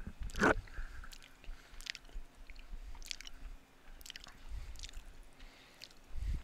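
Close-miked chewing and wet mouth sounds of a person eating casserole, with scattered sharp clicks and smacks; the loudest comes about half a second in.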